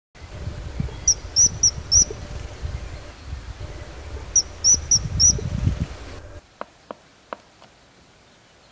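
Common kingfisher calling: two bursts of four short, high-pitched whistled notes about three seconds apart, over wind rumbling on the microphone. The rumble stops suddenly after about six seconds, leaving a few faint clicks.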